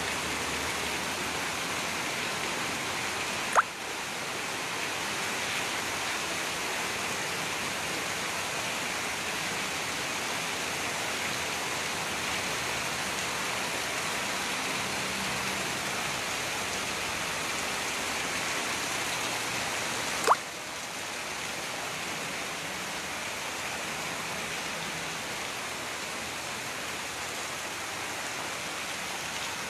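Heavy rain pouring down on grass and a flooded paved yard, with water running off a roof edge: a steady, dense hiss. Two sharp clicks break it, about four seconds in and again about twenty seconds in.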